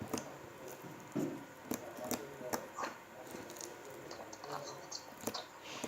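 Slime being squeezed and poked by hand, giving irregular wet clicks and small pops.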